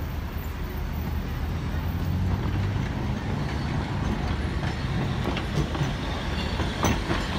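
Blackpool Corporation heritage double-deck tram no. 147 passing close by at low speed: a steady low rumble of its wheels and running gear on the street rails, with a few sharp clicks near the end.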